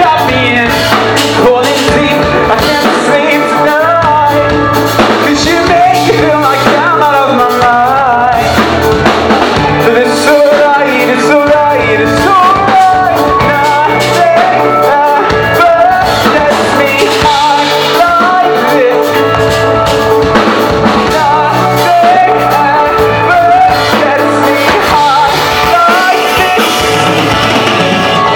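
A song playing loudly, with singing over drums, bass and guitar.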